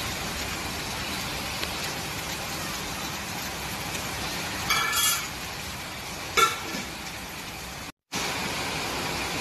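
Steady heavy rain hissing, with a distant vehicle horn sounding twice around the middle.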